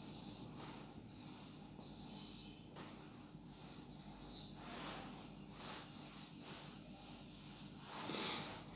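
Dry-erase marker drawing lines on a whiteboard: a series of faint, short squeaky scrapes, each about half a second, with a slightly louder stroke near the end.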